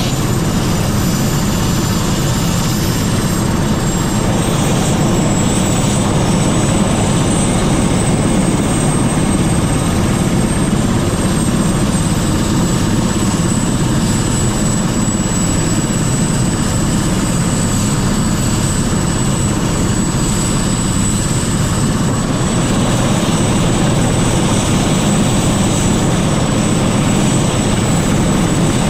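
Helicopter hovering close by: a steady, loud rotor and engine noise with a thin, high whine held over it.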